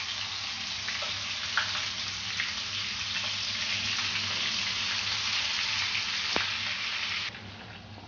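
Marinated pork pieces sizzling as they go into hot oil in a frying pan, a steady high hiss with a few light clicks. The sizzle drops away sharply about seven seconds in.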